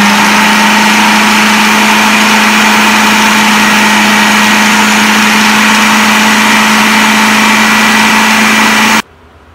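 Electric food processor motor running loud and steady, chopping biscuits into fine crumbs, then cutting off suddenly near the end.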